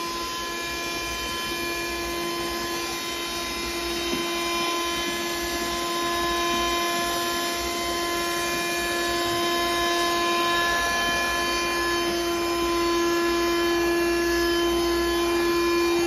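Handheld cordless car vacuum cleaner running, a steady whine from its motor over rushing air as it sucks up scraps of paper. It grows a little louder over the second half.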